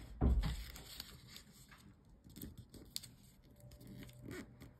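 Origami paper being folded and creased by hand on a wooden tabletop: soft rustles and scrapes of paper with scattered small clicks, and a dull low thump about a quarter second in.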